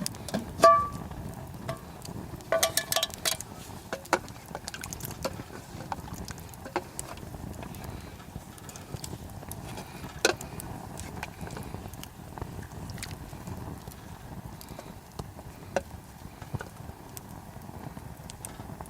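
Campfire crackling with scattered sharp pops, and a few ringing metal clinks of cookware and utensils clustered in the first few seconds.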